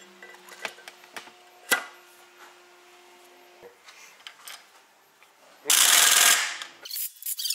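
Pneumatic wrench running a bolt down on a truck gearbox housing in one loud burst of about a second near the end, then rattling in quick short bursts. Before it, light metal clinks and one sharp metal knock about two seconds in as parts are handled.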